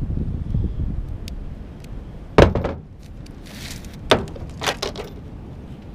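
Metal cable in an aluminum sheath being handled and worked loose by hand. There is one sharp clank about two and a half seconds in, then a short scrape and a few lighter clicks.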